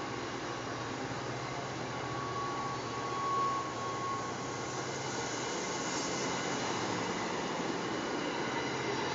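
MBTA commuter rail coaches passing close by at speed: a steady rush and rumble of wheels on the rails, with a faint thin whine in the first few seconds.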